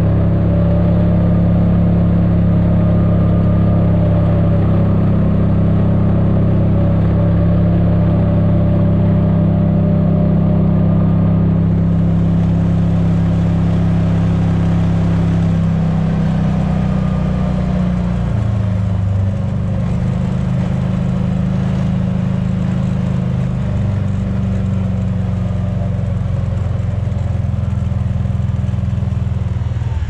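Kubota RTV utility vehicle's engine running steadily while driving, heard from inside its cab. The engine note drops a little past halfway through and stays lower.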